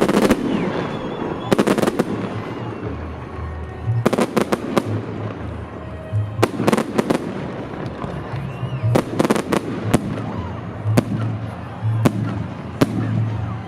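Fireworks salute: shells bursting in clusters of sharp bangs every second or two, some in quick crackling runs.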